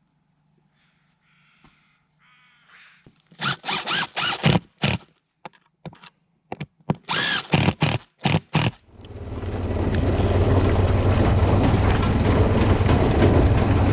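A string of short power-drill bursts, about a dozen over five seconds, driving fasteners. It then gives way to a steady motor drone with wind noise on the microphone.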